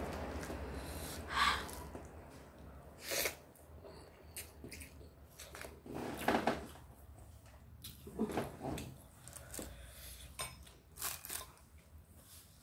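Someone eating rice and fried fish by hand: chewing and mouth sounds, with scattered light clicks and scrapes as fingers gather food in a stone mortar.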